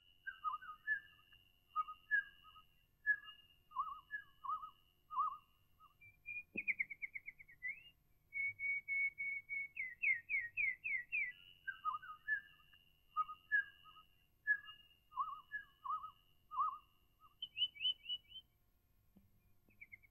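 Fairly quiet high whistling and bird-like chirping. A long high whistle is held with brief breaks while shorter chirping notes repeat below it. Rapid falling trills come twice near the middle, and the same pattern returns in the second half.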